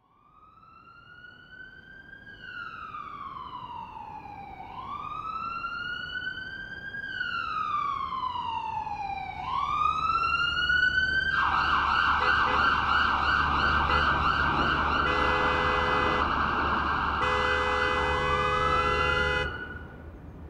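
Emergency-vehicle sirens wailing, each slow rise and fall taking about two and a half seconds, fading in and growing louder. About halfway through they switch to a fast yelp over a low engine rumble, with two long steady horn blasts, then cut off suddenly near the end.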